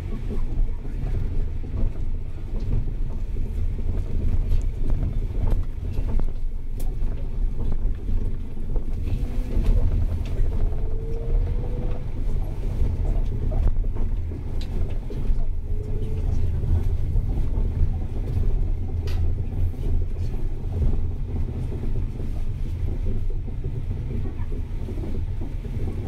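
Steady low rumble of a vehicle in motion: road and wind noise.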